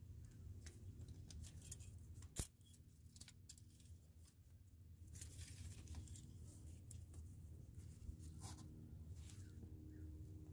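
Faint handling sounds of an engine oil dipstick being slid into its tube and pulled back out to read the level, with one sharp click about two and a half seconds in.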